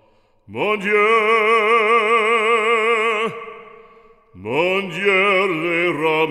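Background music: a solo voice with strong vibrato sings a French hymn. It holds one long note that fades about three seconds in, then rises into the next phrase a second later.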